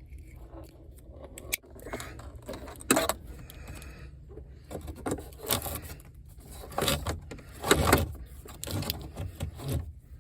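Handling noises: a string of sharp clicks, knocks, scrapes and metallic jangles, the loudest about three and about eight seconds in, over a steady low hum.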